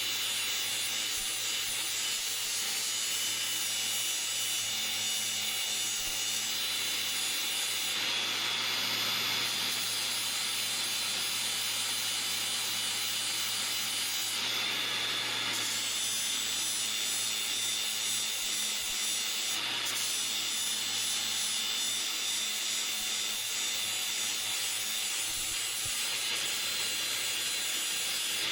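Electric grinder running steadily against the steel of the axe head, grinding off rust: a continuous grinding hiss over a steady motor hum, which changes briefly twice as the contact shifts.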